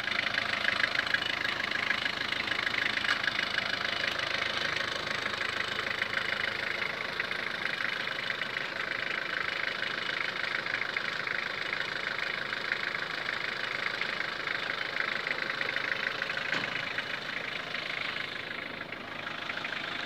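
Hyundai Shehzore pickup truck's diesel engine idling steadily.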